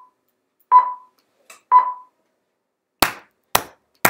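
Final Cut Pro's voiceover-recording countdown: short electronic beeps about a second apart. About three seconds in, hand clapping starts, about two claps a second.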